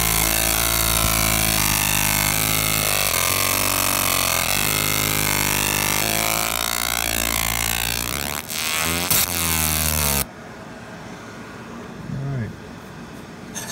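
Galvo laser engraver marking a metal plate: a loud buzzing hum whose pitch steps up and down as the beam scans the hatch lines, with a hiss over it. It cuts off abruptly about ten seconds in.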